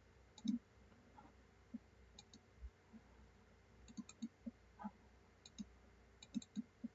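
Computer mouse buttons clicking faintly: a string of irregularly spaced single clicks and quick double-clicks.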